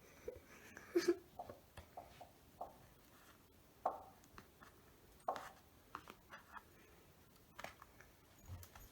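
Faint, scattered light taps and clicks, a few each second, in a quiet room.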